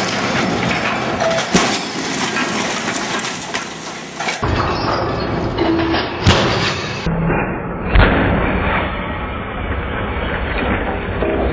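Loud, noisy crashing and clattering with sharp bangs about a second and a half, six, and eight seconds in, broken by abrupt cuts in the sound.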